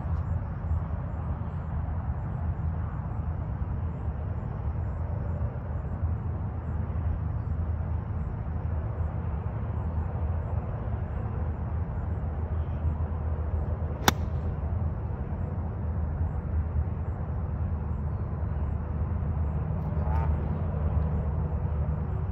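A single sharp click of a 60° wedge striking a golf ball on a low pitch shot, about fourteen seconds in, over a steady low background rumble.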